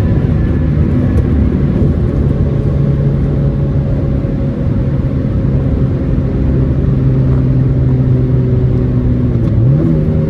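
Cabin sound of a 1994 Honda Accord's four-cylinder engine driving at a steady speed, with a steady engine drone over road rumble. The engine note climbs sharply near the end as the revs rise.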